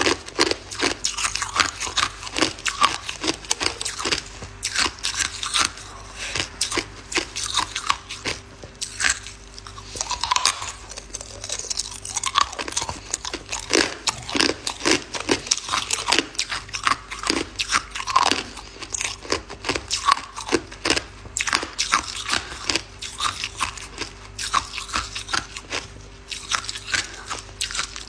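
A person chewing hard ice, with a dense, irregular run of sharp cracking crunches as the ice breaks between the teeth.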